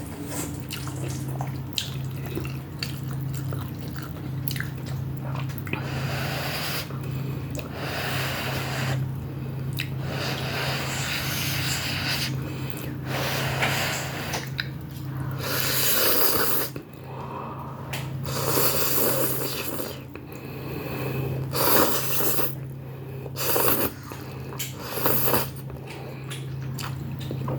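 Noodles and soup being slurped and chewed: a series of noisy slurps of about a second each, with some quieter chewing between them, over a steady low hum.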